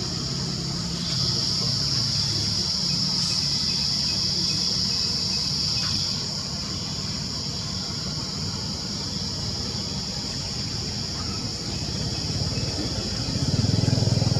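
Insects keeping up a steady high-pitched drone, louder for a few seconds near the start, over a low engine hum from passing traffic that grows louder near the end.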